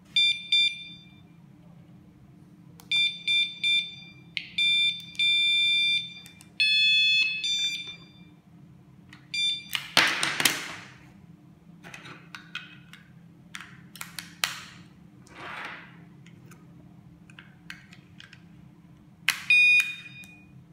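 Battery-powered magnetic door alarm sensors (KS-SF03R) beeping in response to the key-fob remote: quick groups of two to four short high beeps, a longer steady tone and then a beep of a different pitch. About halfway through comes a loud scrape with clicks from the plastic sensor units being handled, and another quick burst of beeps near the end.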